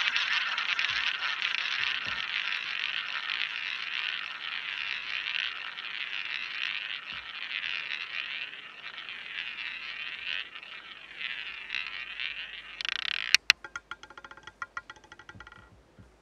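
Roulette ball rolling round the wheel's track, a steady whir that slowly fades as the ball slows. About thirteen seconds in it drops, clacking off the deflectors and rattling among the metal pocket frets for a couple of seconds before it settles in a pocket.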